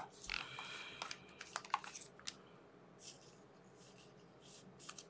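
Faint handling of trading cards: light rustles, slides and scattered small clicks as cards are flipped through by hand.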